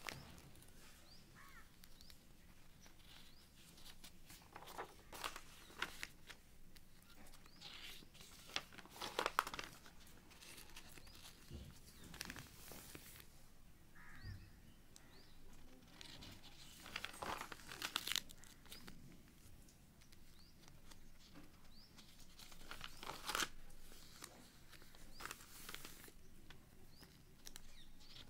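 Sheets of paper rustling as the pages of a handwritten project file are turned and handled, in several separate spells with quieter stretches between.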